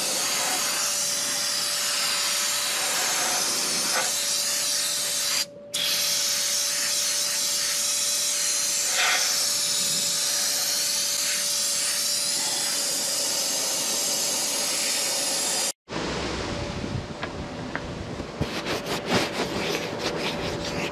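Air-powered undercoating spray wand, fed straight from an air compressor, hissing steadily while spraying Fluid Film under a truck, with a brief release of the trigger about five seconds in. It stops abruptly at a cut about 16 seconds in, after which there is quieter rustling and a few clicks.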